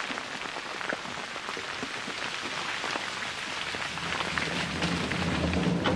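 Waste rock tipped from a mine cart rattling and trickling down a rubble spoil heap as many small irregular clicks. A low rumble comes in about four seconds in.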